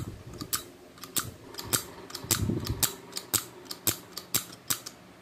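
Stainless-steel 50 ml automatic livestock syringe being squeezed and released over and over: a run of sharp metallic clicks, about three to four a second, as the plunger pumps and draws back on its own.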